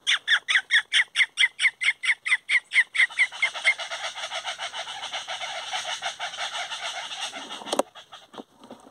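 A group of aracuãs (chachalacas) calling in chorus: a fast run of raucous, evenly spaced calls, about five a second, that runs into a dense overlapping chatter. Near the end a single sharp crack sounds and the calling breaks off.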